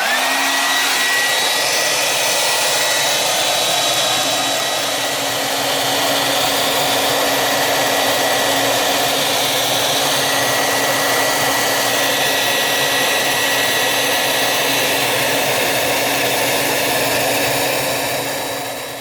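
Handheld hair dryer switched on, its motor whine rising quickly to a steady pitch over the rush of blowing air, run continuously to thaw a chunk of ice jamming a refrigerator ice maker, then switched off near the end and winding down.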